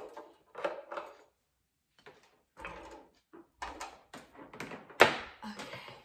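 An electric hot plate and kitchen things being moved and set down on a wooden table: a string of knocks and scrapes, the loudest a sharp knock about five seconds in.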